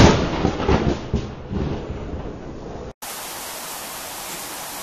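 Thunderclap from a nearby lightning strike: a sharp crack right at the start, rumbling on and dying away over about two seconds, over a steady hiss of rain. About three seconds in, the sound cuts off suddenly to plain steady rain hiss.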